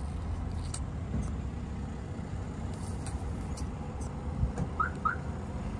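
A newborn kitten gives two short, thin rising mews in quick succession near the end, over a steady low rumble.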